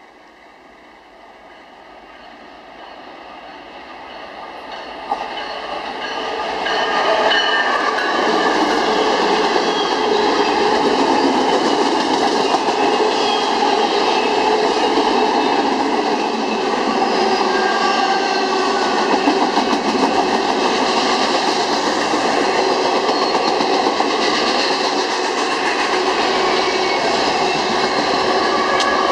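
Union Pacific double-stack container freight train passing at speed. It grows steadily louder as it approaches over the first several seconds, then gives a loud, steady rush of steel wheels on the rails as the stack cars go by close.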